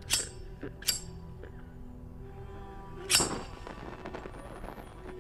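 A metal flip-top lighter struck several times, sharp metallic clicks of its flint wheel, the earlier strikes not lighting and the louder strike about three seconds in catching to a flame. A low, steady musical drone runs underneath.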